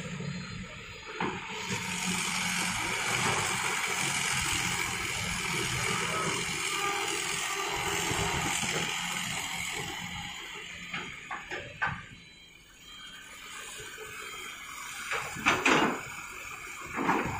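Soil pouring from an excavator bucket into a steel dump-truck bed, a long rushing hiss that fades out, followed by several sharp knocks and clanks, the loudest near the end.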